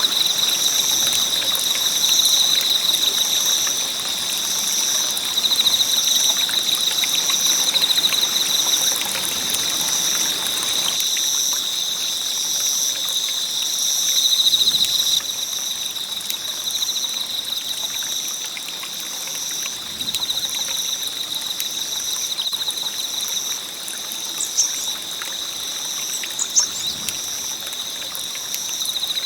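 Wood fire burning with a steady hiss and scattered crackles, and two sharper pops near the end. Over it runs a steady high-pitched ringing that pulses about once a second.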